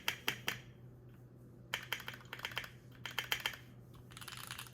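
Keystrokes on a Keychron Q3 mechanical keyboard: keys pressed in quick runs of crisp clacks with short pauses between them, the last run softer.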